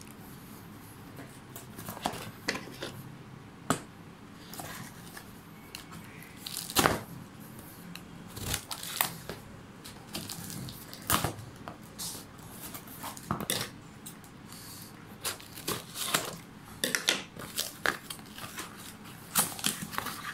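Scissors cutting through the packing tape of a cardboard shipping box, then the taped box being torn open and handled. The sound is a run of irregular sharp snips, rips and rustles.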